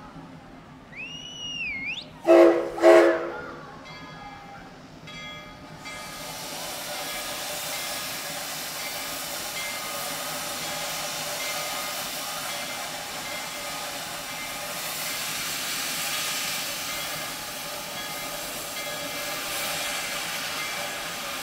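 Steam whistle of narrow-gauge 2-8-0 locomotive D&RGW 340 giving two short blasts, the usual signal to move off, after a brief high whistled note. From about six seconds there is a steady hiss of steam from the open cylinder cocks as the engine starts to roll.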